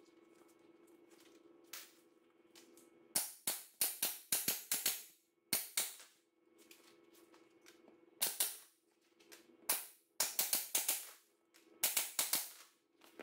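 Staple gun firing staples through black vinyl upholstery into a cardboard-backed foam block: sharp snaps in quick runs, a burst of several starting about three seconds in, then single shots and more runs near the end.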